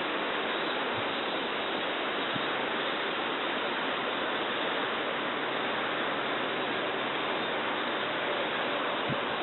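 Steady rush of flowing water, even throughout.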